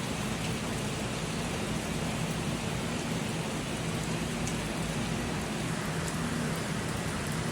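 Heavy rain falling fast: a steady, even hiss of raindrops on roofs and ground.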